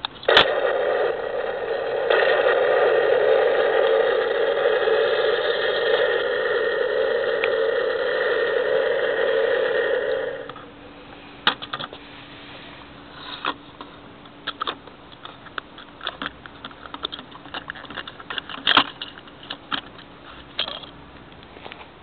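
Battery-operated Thunderbird 3 toy rocket's blast-off sound effect: a steady rocket-engine roar from the toy's small speaker, lasting about ten seconds and then cutting off suddenly. After it, scattered light plastic clicks and knocks as the toy is handled.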